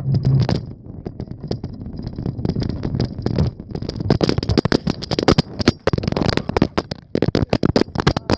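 Phone rattling and clattering loosely in a wire bicycle basket as the bike is ridden, with low wind rumble on the microphone. The rattling gets busier from about halfway through, as the phone shifts and tips over in the basket.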